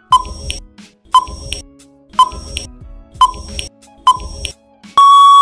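Quiz countdown timer sound effect: five short ticking beeps about a second apart, then a long steady buzzer tone about five seconds in as the time runs out.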